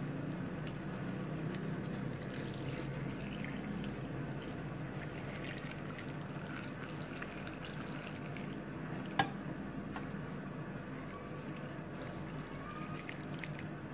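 Water pouring in a steady stream from a plastic jug into a stainless-steel bowl of fish pieces, with one sharp click about nine seconds in.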